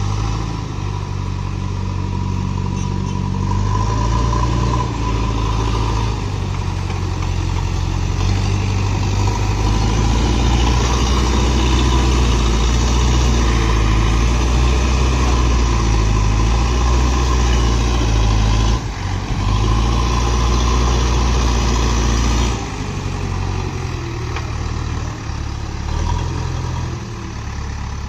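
JCB backhoe loader's diesel engine running steadily under varying load. It grows stronger in the middle, dips briefly about two-thirds of the way through, then settles lower near the end.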